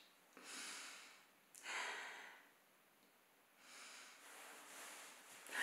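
A woman breathing audibly and sniffing, a few separate breaths in a row with the last one the loudest, while she is close to tears.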